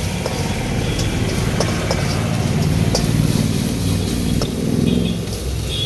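Metal spatula scraping and tapping against a wok as shredded cabbage is stir-fried, with scattered clicks of metal on metal. Under it runs a steady low rumble that swells in the middle.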